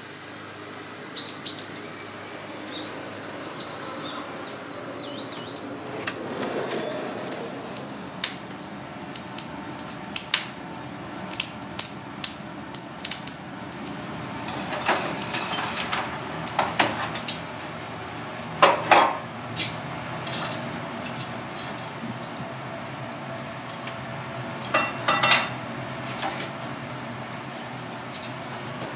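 A bird sings for a few seconds at the start. Then come irregular metallic clinks and clatter, in several louder bunches, as lumps of charcoal are handled around a metal charcoal starter pot and grill.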